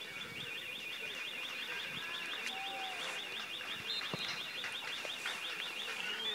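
A distant car alarm sounds a rapid, evenly repeating electronic warble, switching to a stepped rising tone near the end. Faint shouts from players carry underneath.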